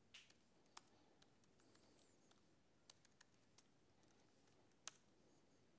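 Faint, irregular computer keyboard key clicks over near silence, with one louder tap near the end.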